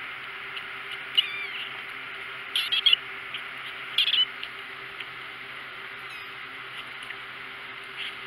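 Four-week-old kitten mewing: short, high-pitched mews about a second in, a quick few near three seconds, and one more at four seconds.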